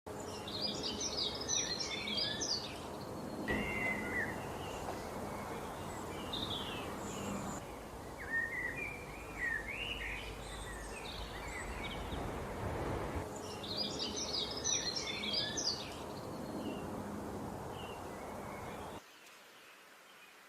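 Songbirds singing, with bursts of quick high twittering and chirping phrases over a steady background rush. The background rush cuts off suddenly near the end and leaves a much quieter bed.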